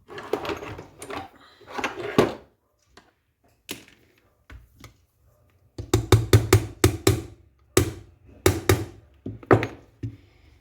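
A string of sharp clicks, knocks and scrapes from parts of an airsoft M14 being handled and worked on during disassembly, with a quick run of about seven clicks past the middle and a few single knocks near the end.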